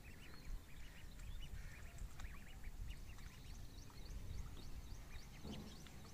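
Ducklings peeping: many short, high, faint peeps scattered and overlapping, over a low background rumble.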